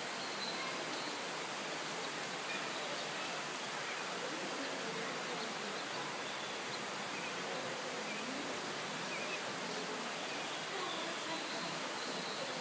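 Steady hiss of background ambience with no distinct events, and a few faint, short high chirps scattered through it.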